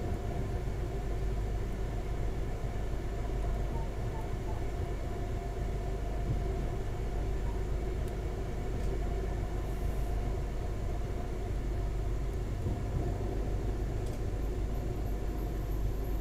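Pesa 218Mc diesel train running at steady speed, heard from on board: a low rumble with a steady engine drone. A faint high-pitched whine comes in near the end.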